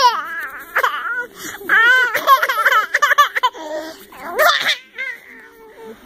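Baby laughing in several high-pitched bursts of giggles and squeals, the longest and loudest about two seconds in.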